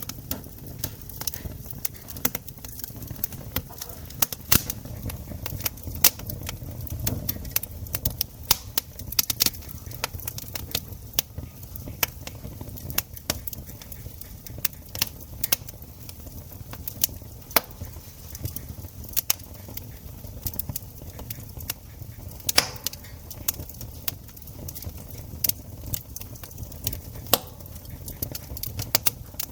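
Wood campfire crackling: irregular sharp pops and snaps, some loud and some faint, over a low steady rumble.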